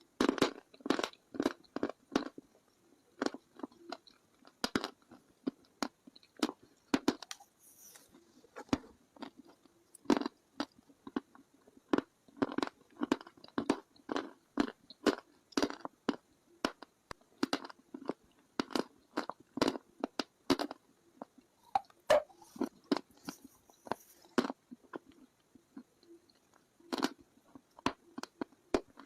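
A person chewing hard mineral sticks (chalk and slate pencil), close to the microphone: a long run of sharp, brittle crunches, one or two a second, at an uneven pace.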